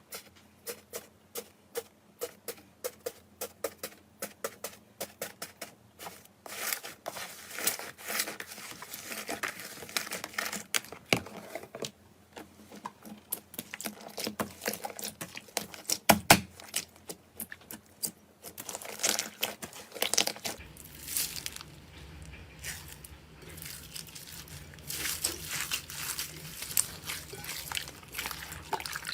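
Slime being pressed, poked and stretched by hand: a long run of sticky clicks and crackles, regular at first and then denser, with one louder snap about sixteen seconds in.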